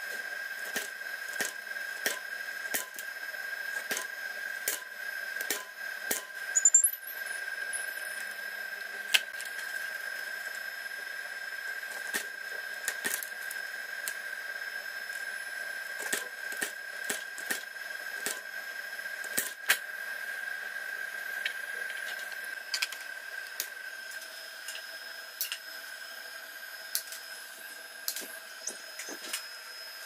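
Punch-down tool snapping as it seats network cable wires into a patch panel's terminals: irregular sharp clicks, one every second or so, with a louder clatter about seven seconds in. A steady high-pitched tone runs underneath.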